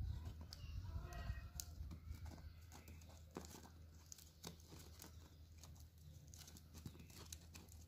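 Plastic basket-weaving wire rubbing and clicking as hands pull the strands of a woven knot tight: faint scattered ticks and crinkles over a low steady hum.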